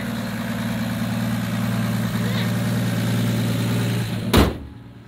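1965 Plymouth Barracuda's 225 slant-six engine idling steadily with its hood up, an exhaust leak between the intake and exhaust manifolds noted by the owner. About four seconds in the hood is slammed shut with one loud bang, and the engine then sounds much quieter.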